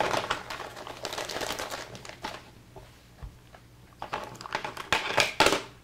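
Clear plastic bag of toy parts crinkling as it is opened and emptied, then small hard plastic pieces clicking and knocking against each other and the table, with a louder rustle of the bag near the end.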